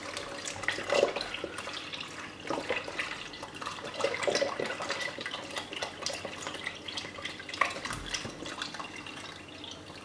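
Milk pouring from a one-litre carton into a steel pot of cooked rice, splashing unevenly.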